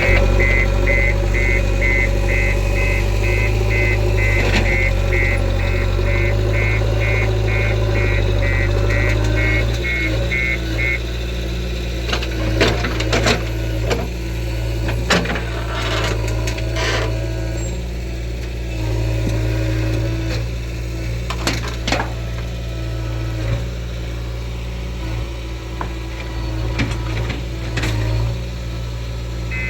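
JCB 3DX backhoe loader's diesel engine running steadily, with a warning beeper sounding about two beeps a second for the first eleven seconds or so. After the beeping stops come scattered sharp knocks and clanks.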